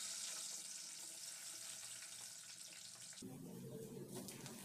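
Faint steady hiss of food cooking in a pot, which cuts off suddenly about three seconds in. A spatula then stirs jollof rice in the pot, a lower, uneven rustle.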